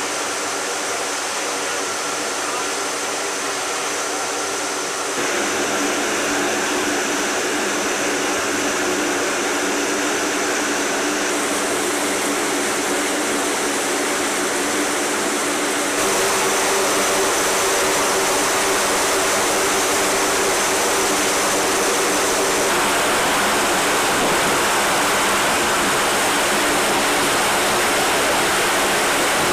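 Aircraft engines running, heard as a steady roar inside a cargo hold, with a low steady hum of engine tones under the rushing noise. The noise steps louder about five seconds in and again about sixteen seconds in.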